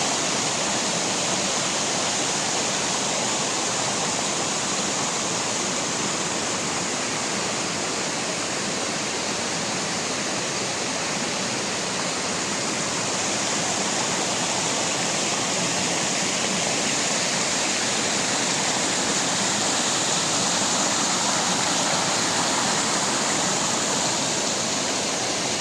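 Waterfall, a steady rushing of falling water without a break.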